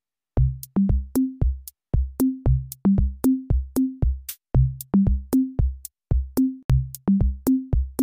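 Electronic intro music: a drum-machine beat of short, pitched bass-drum thumps stepping between a few low notes, each with a sharp click on top. It starts about a third of a second in and keeps an even rhythm of about three hits a second.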